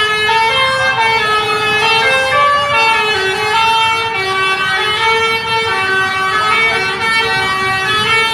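Bus 'telolet' horn: a set of air-horn trumpets playing a quick melody of stepping notes that goes on without a break, with a low rumble underneath.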